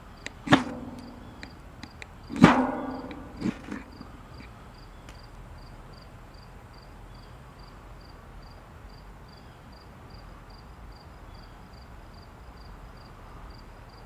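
An insect chirps steadily with a high pulse about two and a half times a second. Three short, sharp scraping strikes sound in the first four seconds, the loudest about two and a half seconds in.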